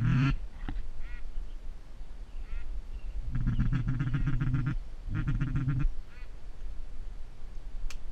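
Duck quacking: a loud quack at the start and a few fainter single quacks, then two fast runs of quacks about three and five seconds in. A single sharp click near the end.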